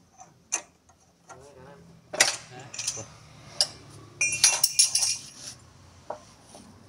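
Metal tools and parts clinking and clanking against each other: a series of sharp metallic knocks with a brief ring, busiest from about two to five and a half seconds in.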